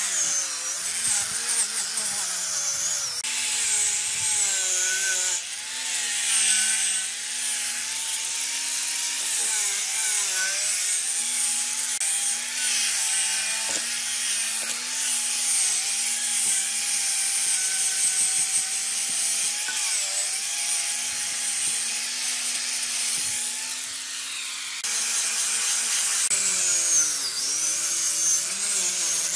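Electric angle grinder with a wire cup brush scouring rust off a cast-iron lathe bed: a steady motor whine over a harsh scratching hiss, the whine dipping in pitch whenever the brush is pressed harder.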